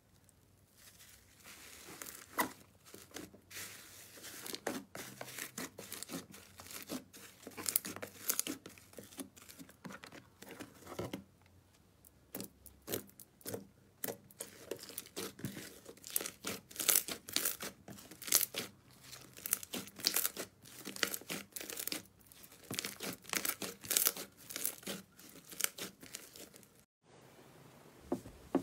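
Slime being stretched and pressed by hand, giving a rapid run of sharp, sticky crackles and pops, with a short lull about halfway.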